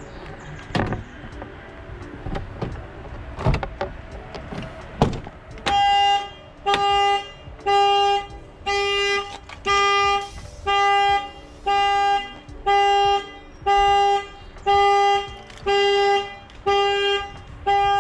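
A few sharp clicks and knocks, then a car horn honking about once a second, over and over. It is the car's alarm going off as the locked car is opened.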